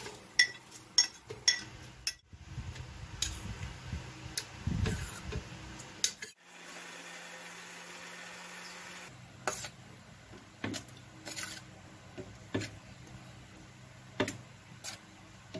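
Ingredients dropped and tapped into a plastic blender jar, a series of sharp knocks and clatters. About six seconds in, an electric blender runs steadily for about three seconds, a short pulse to blend the yogurt, chillies and spices lightly. More knocks follow.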